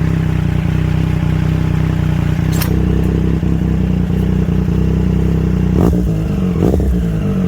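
Triumph Street Triple 765 RS inline-three engine idling steadily through an SC Project S1 exhaust. There is a sharp click about two and a half seconds in, and two brief rises in the engine note near the end.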